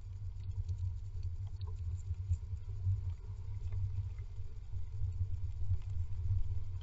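Great tit shuffling and settling on its nest inside a wooden nest box: faint scattered scratching and rustling of claws and feathers in the moss and wool lining, over a steady low rumble.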